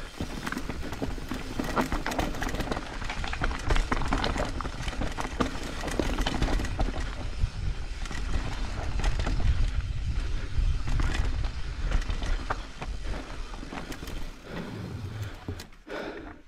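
Trek Slash full-suspension mountain bike rolling fast down a rocky dirt trail: tyres crunching over stones and roots, with frequent rattles and knocks from the bike, and wind buffeting the microphone. It eases off near the end as the bike slows onto wooden boardwalk planks.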